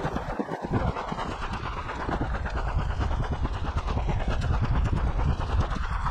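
Footsteps and rattling paintball gear of a player on the move, in quick irregular crunches and clatters over a steady low rumble.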